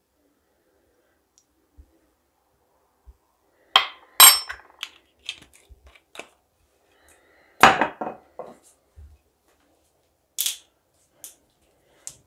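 Kitchen utensils clinking and knocking: a metal tablespoon against a ceramic bowl and set down on a wooden cutting board. It is a string of separate sharp clinks, the loudest about four seconds in and again near eight seconds, with lighter taps in between and after.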